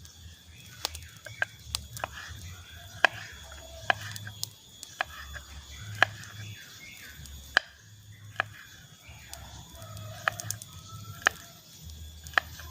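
A knife cutting garlic, shallots and chilies on a board: sharp, irregular single chops about once a second.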